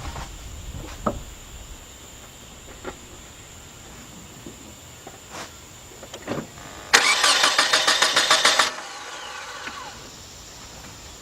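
Starter motor cranking the 1993 Nissan Altima's 2.4-litre four-cylinder for about a second and a half, about seven seconds in, with rapid even pulses, then stopping without the engine catching: a crank-no-start. A few faint clicks come before it.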